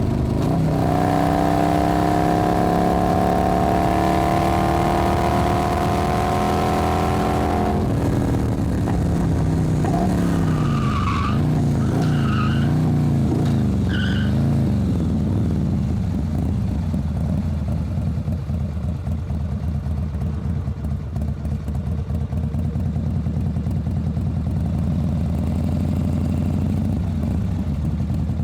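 Motorcycle engine with a low exhaust note, pulling under acceleration with its pitch rising slowly for about eight seconds. The revs then drop, rise and fall a few times, and settle into a low, steady idle for the last dozen seconds.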